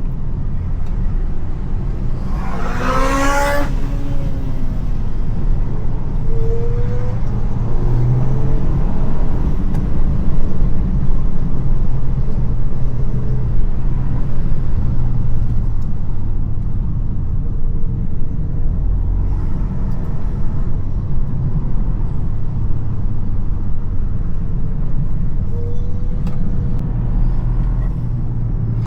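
Toyota GR Yaris three-cylinder engine running under way, its low drone rising and falling in pitch with throttle and speed. A brief, louder, higher sweeping sound cuts through about three seconds in.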